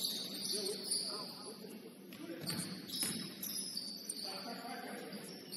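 Basketball bouncing on a gym court during play, a few sharp knocks over a hubbub of players' voices and short high squeaks.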